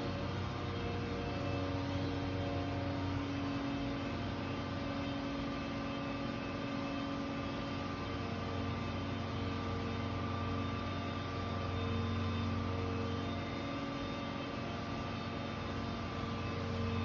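A machine running steadily: a continuous low drone with several held tones that drift slightly in pitch.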